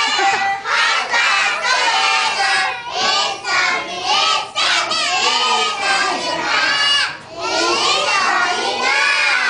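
A class of young children singing and shouting together, many high voices at once, loud and lively, with a short break a little past seven seconds.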